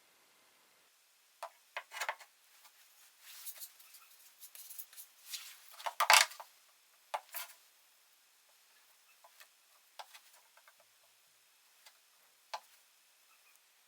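Small clicks, taps and rustling from parts being handled on a workbench, with the loudest knock about six seconds in and a few scattered ticks after that.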